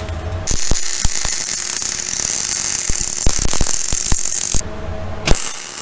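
MIG welder arc crackling and hissing as a corner joint is welded on a steel axle truss. It starts about half a second in, cuts off after about four seconds, then strikes again shortly before the end.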